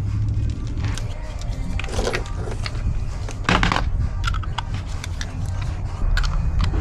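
Metal hand tools clinking and clattering in irregular sharp knocks, over a steady low hum.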